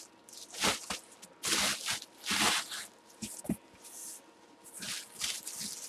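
Bubble wrap and a cardboard box being handled, crinkling and rustling in several short bursts.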